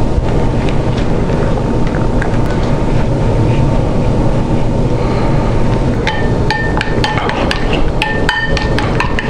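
A steady, loud rumbling noise with a faint steady hum. From about six seconds in, a metal fork clinks and scrapes against a ceramic bowl several times a second as soft polenta is stirred, each clink ringing briefly.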